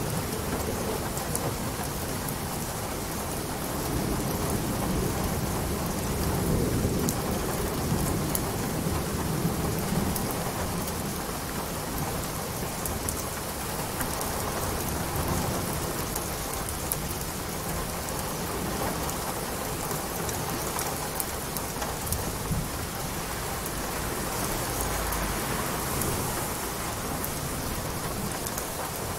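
Steady rain, an even hiss with scattered sharp drop ticks, under a low rumble of thunder that swells from about four seconds in and fades by about ten seconds in.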